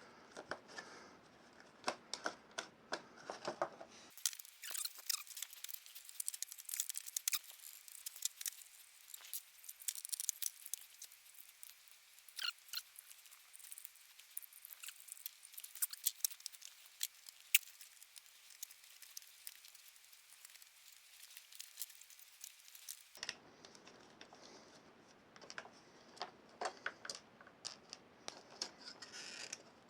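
Scattered small clicks, taps and scrapes of a plastic tool casing and small parts being handled as a desoldering tool is taken apart.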